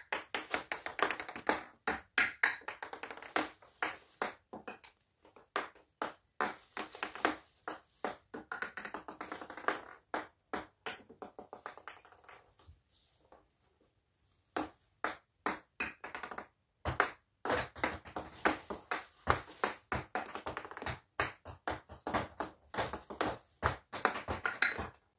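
Ping pong balls bouncing on a stone countertop: runs of sharp, light clicks one after another, with a pause of a couple of seconds about halfway through.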